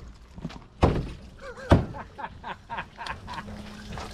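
Two loud thunks about a second apart, with lighter knocks and a brief squeak between them.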